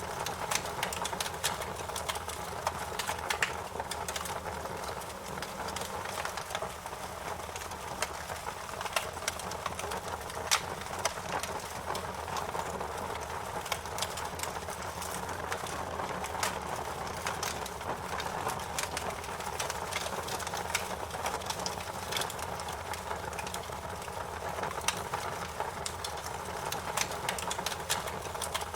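Wood fire burning: a steady hiss of flames dotted with frequent, irregular sharp pops and snaps of crackling wood.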